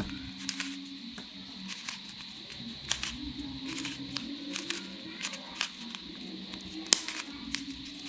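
Stickerless 3x3 Rubik's cube being turned by hand: irregular plastic clicks and clacks as its layers turn and snap into place, the loudest about seven seconds in.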